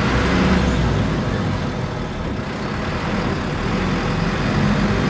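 City bus engine running with road noise, heard from inside the passenger cabin while the bus is driven along.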